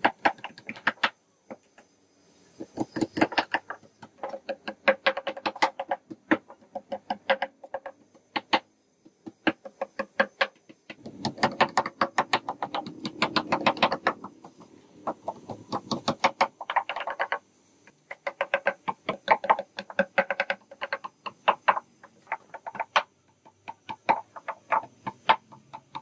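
Claw hammers nailing metal strips onto the board joints of a wooden feeding tray: quick ringing taps in bursts of rapid blows with short pauses between, at times two hammers at once.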